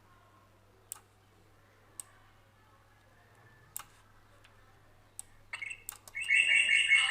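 A few sharp single clicks, about a second apart, then near the end a loud chirping bird call played back with added reverb starts up and becomes the loudest sound.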